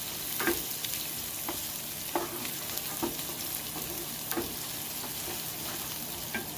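Chopped garlic and onion sizzling in hot oil in a pan, with a steady hiss, while a utensil stirs them and knocks against the pan in sharp clicks every half second to a second.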